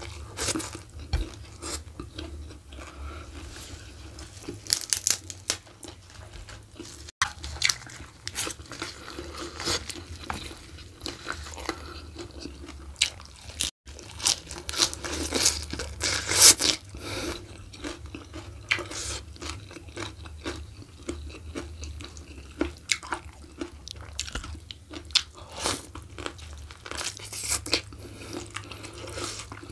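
Close-miked chewing and crunching with many sharp, wet mouth clicks: a person eating spiced beef oxtail and crunchy raw vegetables by hand. A steady low hum runs underneath.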